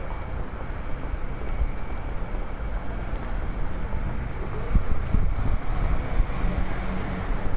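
Wind buffeting the microphone, a rough rumbling noise with a few louder gusts about five seconds in, over faint town-street background.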